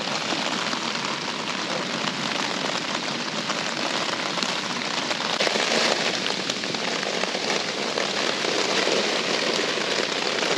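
Steady heavy rain falling: a dense, even hiss of countless small drops.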